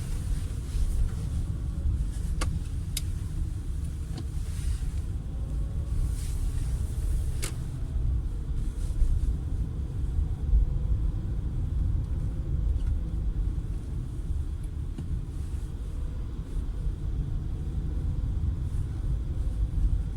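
A 2012 Peugeot 408 on the move, with a steady low road rumble. A few sharp knocks come in the first half, the front-end knock that the car is being checked for.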